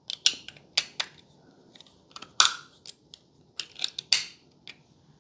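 Irregular sharp clicks and clacks from handling a retractable box-cutter utility knife as its handle halves are fitted back together over spare blades stored inside, about a dozen clicks, the loudest two near the middle and about a second later.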